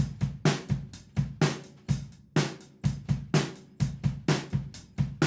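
Acoustic drum kit playing a steady rock groove: snare backbeat on 2 and 4, eighth notes on the hi-hat, and a syncopated bass-drum pattern, about four even hits a second.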